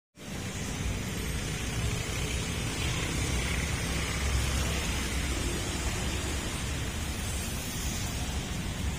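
Steady outdoor street ambience: an even noise with a heavy low rumble and no distinct events.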